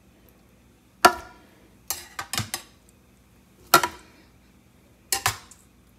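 Whole cooked tomatoes being put into a blender jar, knocking and clattering against the jar: four separate clusters of sharp knocks, a second or so apart.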